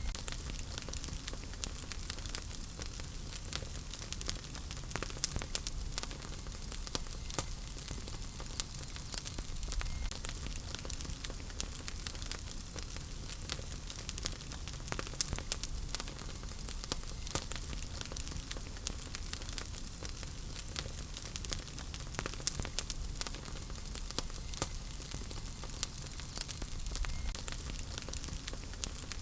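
Wood fire burning in a fireplace: a steady low rumble of flames with frequent irregular crackles and pops of burning wood.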